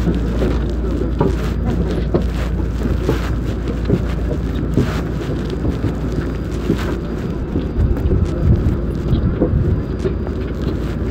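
Footsteps knocking on the metal treads of an aircraft boarding stair, over a steady low rumble of airport apron noise.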